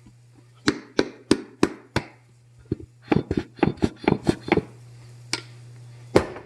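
A series of loud, sharp knocks, about three a second at first, then a quicker run of them, over a steady low hum.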